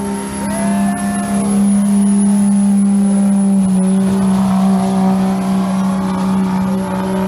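Dodge Ram 3500's turbocharged Cummins inline-six diesel at full throttle, hauling a weight-transfer sled: a loud, steady engine note held at high revs under heavy load, with a high turbo whistle over it. The engine's pitch drops a little about halfway through.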